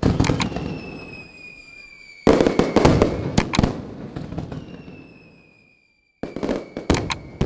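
Slot machine's fireworks sound effect through its speaker: three bangs with crackling, each dying away under a thin whistle that falls slightly in pitch.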